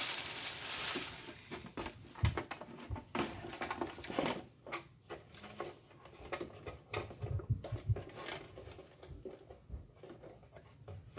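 Shredded paper and cardboard scraps pouring out of a plastic toy garbage truck's bin onto a wooden floor in a rustling patter. This is followed by a hand rustling and scraping the last scraps out of the plastic bin in scattered light clicks.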